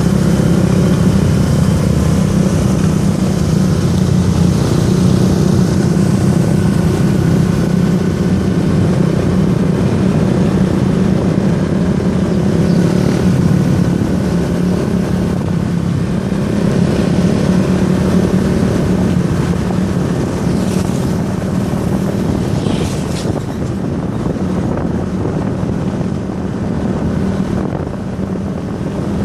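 A motor vehicle's engine running steadily, a constant low drone.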